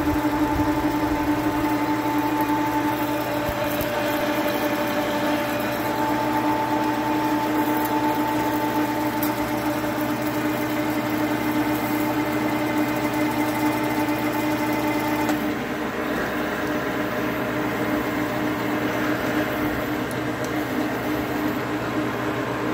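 Metal lathe running and cutting a 6-inch bar of 6061-T6 aluminium, the tool facing the end of the spinning bar: a steady whine over the machine's hum. About two-thirds of the way through the whine fades and the sound gets a little quieter.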